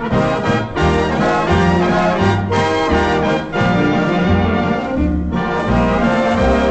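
Dance orchestra playing a foxtrot with the brass section, trumpets and trombones, in the lead, on an old 78 rpm record.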